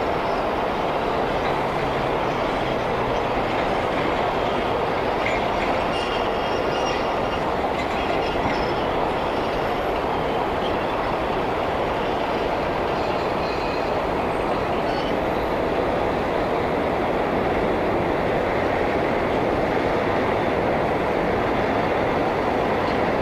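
Elevated subway train running along a steel viaduct: a steady, unbroken rumble with faint high wheel squeals now and then, heard through a window opened a crack.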